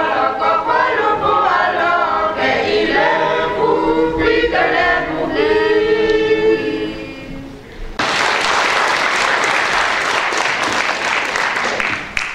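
A choir of young singers ends a song on a long held chord. About eight seconds in, the congregation breaks into applause that lasts about four seconds.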